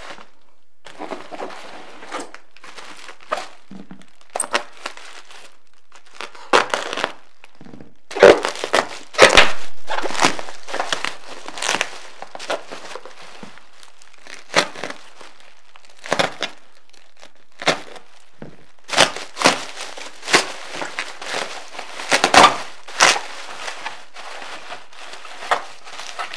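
Bubble wrap and plastic packaging being handled and unwrapped, with irregular crinkling and rustling. A few loud sharp hits stand out, about eight to ten seconds in and again later.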